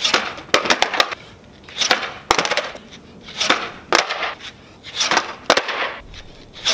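Skateboard on concrete during double kickflip attempts: a string of sharp cracks and clacks as the tail pops and the board slaps down, about one every second or less, with the rush of wheels rolling in between.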